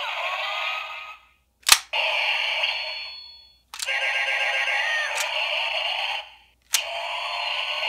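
Electronic sound effects and music from the DX Boonboom Changer toy's small built-in speaker, tinny with no bass. They break off and restart three times, each new stretch set off by a sharp plastic click of the toy's mechanism at about two, four and seven seconds in.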